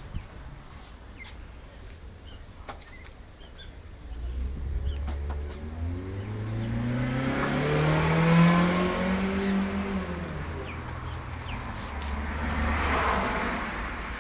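A motor vehicle going by, its engine pitch rising steadily as it accelerates from about four seconds in, then dropping away; faint bird chirps before it.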